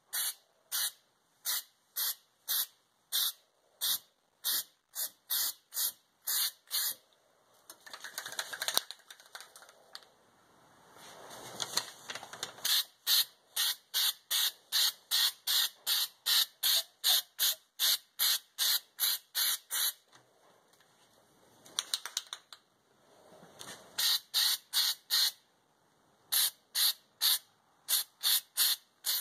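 Aerosol can of spray-on bed liner hissing in quick short squirts, about two a second, with a few longer continuous sprays in between.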